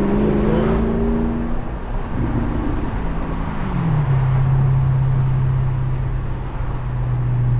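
The 4.8-litre V8 of a 2010 BMW 650i Cabriolet running on the move. Its note rises briefly, falls about four seconds in, then settles into a steady low drone.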